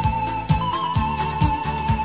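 Background music with a steady beat, about two kick-drum strokes a second, under a held, slightly wavering lead tone.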